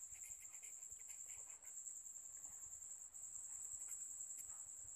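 Faint scratching of a pen writing on paper, over a steady high-pitched chirring.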